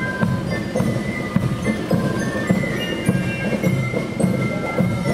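Marching band playing in the street, a steady drum beat under a high melody.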